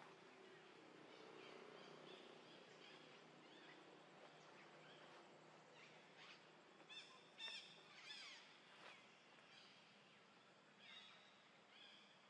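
Faint outdoor ambience with short, high-pitched animal chirps: a cluster about seven to nine seconds in and a couple more near the end.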